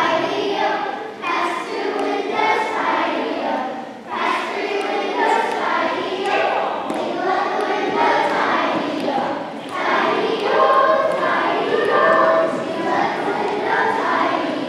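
A group of children singing together, unaccompanied, in phrases a few seconds long with short breaks between them.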